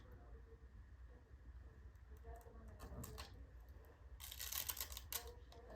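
Faint handling of a paper warning sticker being put onto the wall: small clicks and a brief rustle about four seconds in.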